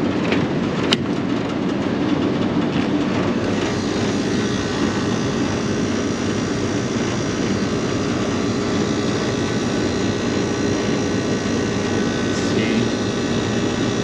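Rooftop packaged air-conditioning unit running on its second stage, its condenser fan blowing a steady rush of air, with one sharp click about a second in. Stage 1 is not running: it is locked out on low pressure from a refrigerant leak in its condenser coil.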